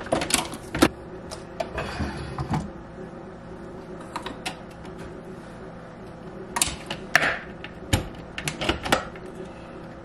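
A capsule coffee machine being handled: a scatter of short plastic clicks and knocks as a mug is set in place and the machine's lid is opened and closed. The clicks come in small groups, loudest around two thirds of the way in, over a faint steady hum.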